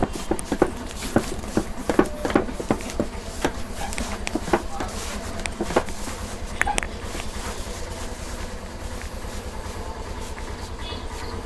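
Hands patting and tapping on the body during a head and upper-body massage: a run of irregular sharp pats for the first seven seconds or so, then fewer, over a low steady rumble.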